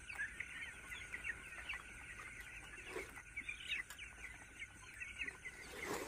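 A flock of young broiler chicks cheeping, many short high peeps overlapping without a break.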